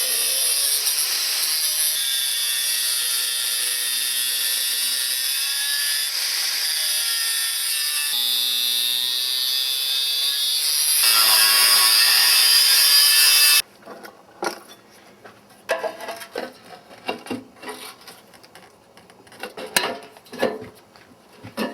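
A power tool cutting through rusted stove metal runs steadily for about fourteen seconds, getting louder toward the end, then stops abruptly. Short metal knocks and clinks follow as parts are handled.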